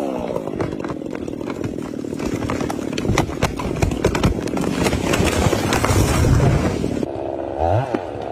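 A chainsaw's engine falls from a high rev at the start, then runs steadily with many sharp cracks through the middle, and revs up again near the end.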